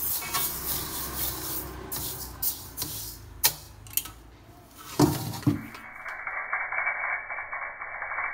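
Metal spatula scraping and stirring dry seeds in a carbon-steel wok, with several sharp knocks of the spatula against the wok, the loudest between about three and a half and five and a half seconds in. About six seconds in this gives way to muffled guitar music.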